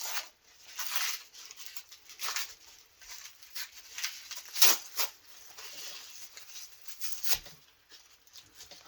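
Packaging being cut and torn open by hand: a run of irregular scratchy cuts, rips and rustles, with a few sharper strokes about a second in, around four and a half seconds, and near seven seconds.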